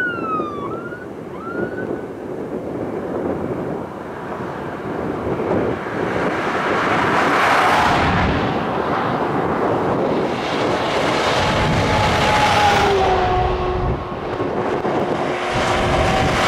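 A convoy of fire engines and emergency vehicles responding with warning devices on. A siren sweeps up and down briefly at the start. Then comes the rising rush of heavy engines and tyres passing, with wind on the microphone, and steady siren or horn tones sound in the second half.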